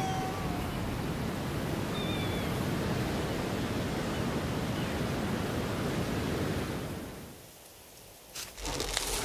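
Steady rushing of wind and sea surf that fades away about seven seconds in, followed near the end by a few short rustling knocks.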